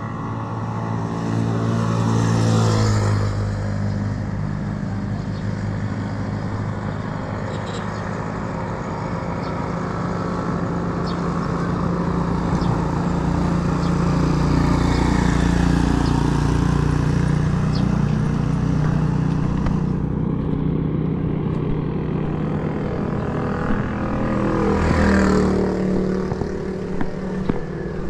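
Motor vehicles passing on a road: one goes by about two seconds in, its engine swelling and then dropping in pitch as it passes, a steady engine hum carries through the middle, and another vehicle passes about 25 seconds in.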